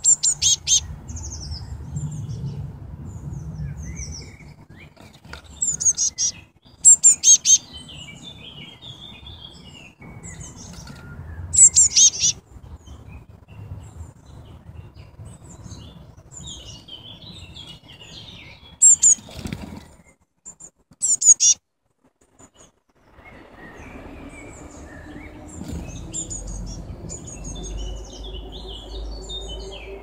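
Blue tit fledglings calling from and around the nest box: loud bursts of high, thin, rapidly repeated notes every few seconds, with softer birdsong in the background.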